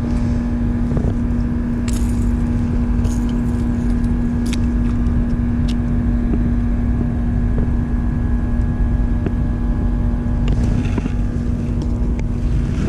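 Small boat motor running with a steady hum and low rumble. A few sharp metallic clicks about two to six seconds in as fishing pliers work a hook out of a fish's mouth.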